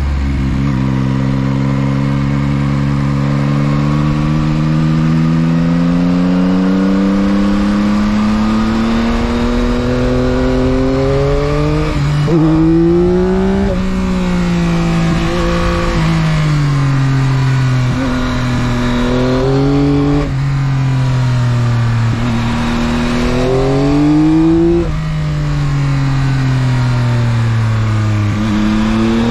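2022 Yamaha XSR900's three-cylinder engine running through its stock exhaust under riding load, with a steady rush of wind. Its pitch climbs steadily for about twelve seconds, then jumps through quick gear changes. After that it falls and rises again several times as the bike slows for and accelerates out of bends.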